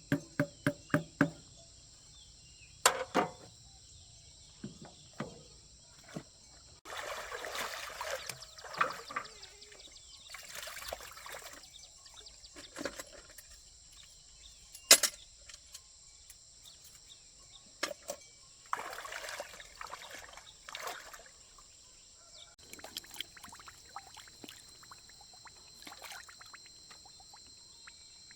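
Hands-on repair work on tractor parts. A quick run of sharp taps fades out in the first second, then come scattered clicks and knocks, one sharp strike about halfway, and a few stretches of scraping or sloshing, with a faint steady high hiss behind.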